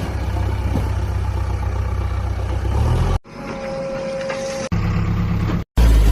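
Engine of a heavy vehicle running with a steady low rumble, in spliced pieces: it cuts off abruptly about three seconds in, a quieter stretch with a thin steady tone follows, and after a brief dropout near the end the rumble comes back louder.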